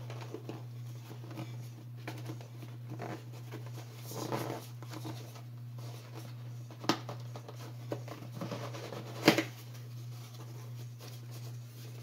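Cardboard shipping box handled and turned over on a wooden table: scattered rustles and scrapes and a few light knocks, with one sharp knock about nine seconds in, over a steady low hum.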